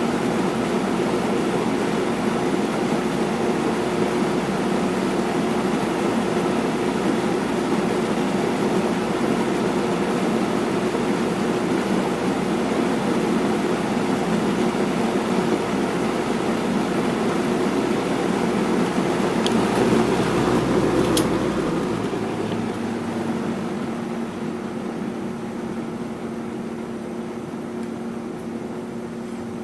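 1984 Robeson 20-inch box fan with a McMillan motor running, a steady rush of air over a motor hum. About two-thirds of the way in there is a click, and the fan then slows and gets gradually quieter while still running with a softer hum.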